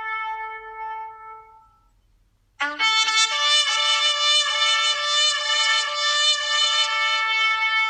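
A horn sounding long blasts, a shofar-like call. A first held note fades away within the first two seconds; after a short gap a second, louder blast starts low, jumps up in pitch and is held, wavering slightly.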